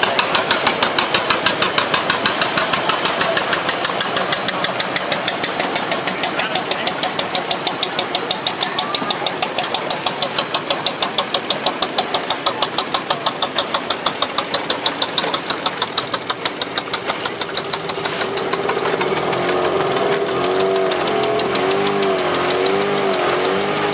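Boat engine running with a fast, even knocking beat. The beat fades a little after about two-thirds of the way, and a wavering engine note that rises and falls in pitch takes over near the end.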